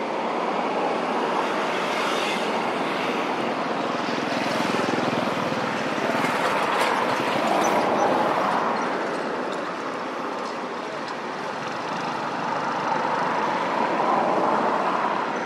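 Steady outdoor background noise, an even rushing that swells and eases slowly, with a few faint ticks midway.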